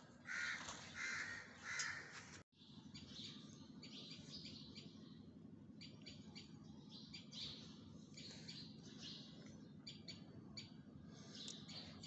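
Crows cawing three times, a little under a second apart. After a brief cut, a steady low hum with faint, scattered high chirps.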